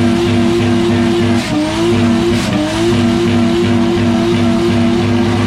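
Burnout car's engine held at high revs, with tyres spinning and squealing. The engine note dips and climbs back twice around the middle.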